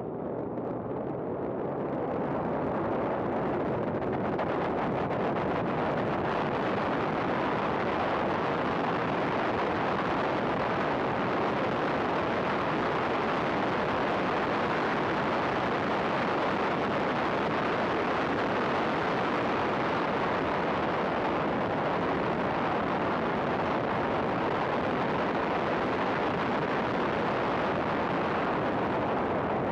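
Race car at speed, heard mostly as heavy wind rush buffeting a roof-mounted camera's microphone, with the car's running noise beneath. It builds over the first few seconds as the car accelerates out of a corner onto the straight, stays steady, and eases slightly near the end as it slows.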